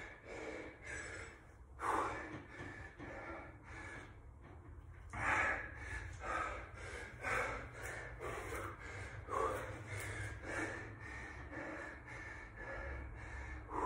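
A man breathing hard, with heavy breaths about once a second as he recovers from a high-intensity exercise set.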